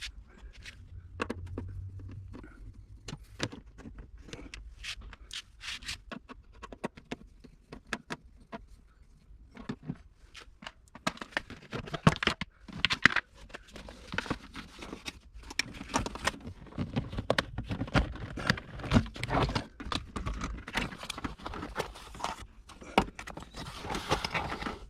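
Hands working the car's carpet and battery cables: scattered clicks, scrapes and rustles, busier in the second half.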